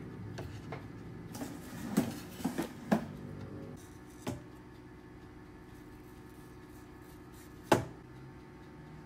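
Kitchen knife and mango pieces knocking on a wooden cutting board while a mango is peeled and sliced: a few light knocks about two to three seconds in, another just after four seconds, and one sharper knock near the end.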